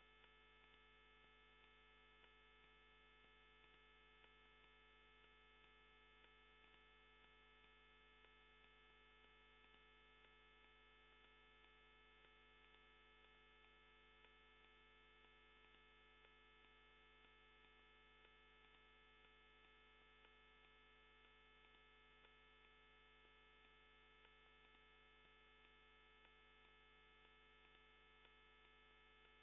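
Near silence: only a faint, steady electrical hum made of many fixed tones, with no sound from the match itself.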